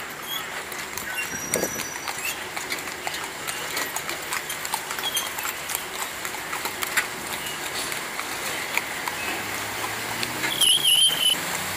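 Horse hooves clip-clopping on an asphalt street as horse-drawn carriages pass, with many short clicks and knocks. About ten seconds in, a brief high warbling sound rises over it and is the loudest thing heard.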